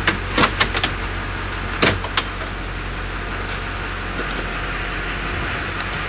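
Plastic dashboard trim retainers snapping and clicking loose as the instrument panel trim is pulled away from the trim pad: a quick run of sharp clicks in the first second, two more around two seconds in, and a few fainter ones later, over a steady hiss and low hum.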